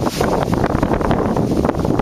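Strong wind blowing hard across the microphone, a loud, steady rush shot through with rapid short crackles.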